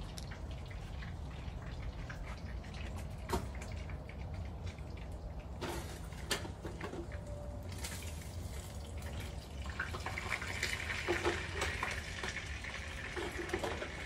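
A small plastic ball knocked about by a cat on wet concrete and a metal drain grate: scattered light clicks and scrapes, thickening into a run of ticks and a hiss from about ten seconds in, over a steady low hum.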